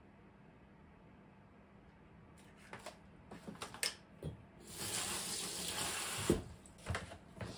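Kitchen tap run briefly into a sink for about a second and a half, after a few light clatters of things being handled. A sharp knock with a short ring comes just as the water stops.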